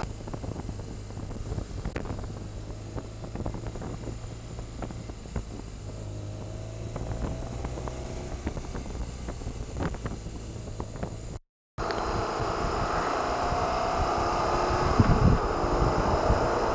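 BMW R1200RT's flat-twin engine running while riding, with wind rush, its pitch rising as the bike speeds up. The sound cuts out for a moment a little past halfway, then comes back louder.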